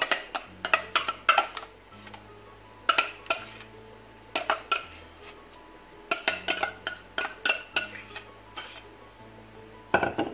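A spoon clinking and scraping against a bowl and a glass baking dish while scooping out mashed potato, in quick groups of knocks with pauses between them. Soft background music plays underneath.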